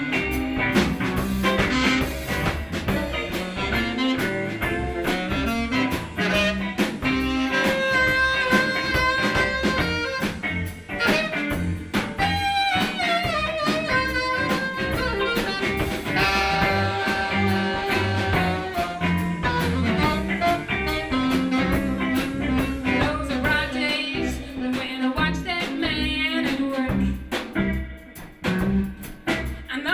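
A live blues band playing, with guitar and a woman singing.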